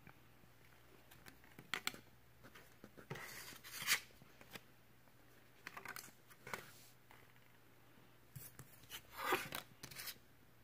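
Panini Hoops basketball cards being handled and slid on a tabletop: faint papery swishes and scrapes in a few short bursts, the loudest about four seconds in and another a little after nine seconds.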